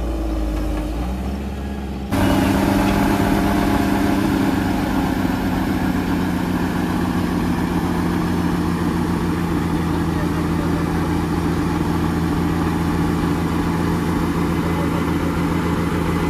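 Heavy diesel machinery engine running at a steady speed with an even hum. About two seconds in, a quieter engine sound cuts abruptly to this louder one.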